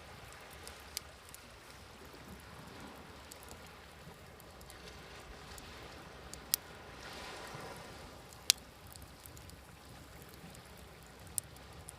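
Wood fire crackling with sharp pops, two of them loud, about six and eight seconds in, over the steady wash of sea waves; a wave swells up and falls away in the middle.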